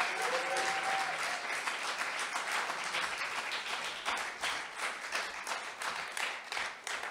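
Audience applauding, dense at first, then thinning into scattered separate claps that die away near the end.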